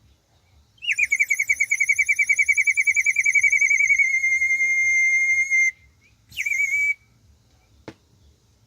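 Handmade terracotta water whistle (bird whistle) blown into a long warbling trill, about ten wobbles a second, that steadies into a plain tone before stopping, then a second short blow. The water inside the jar makes the bird-like warble.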